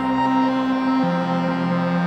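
Drone ambient synthesizer music played live on an Arturia MicroFreak and a Novation Circuit Tracks: layered sustained tones, with the low note stepping down in pitch about a second in.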